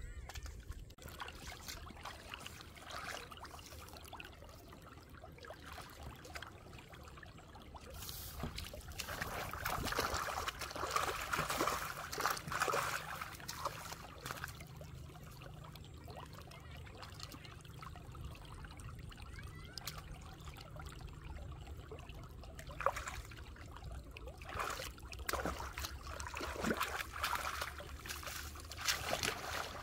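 Hands working in shallow muddy water, splashing and dribbling, with a louder stretch of splashing about ten seconds in and short splashes again near the end.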